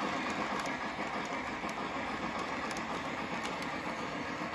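Lionel LionChief+ 2.0 O-gauge Southern Berkshire model steam locomotive and passenger cars running along the track: a steady rolling rumble with scattered light clicks.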